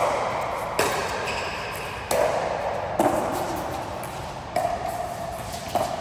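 A ball being struck back and forth in a rally: sharp hits, each followed by a ringing echo, coming about once a second, about seven in all.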